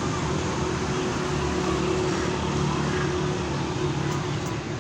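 A machine running steadily: a constant low hum with a steady mid-pitched tone, under a broad even noise.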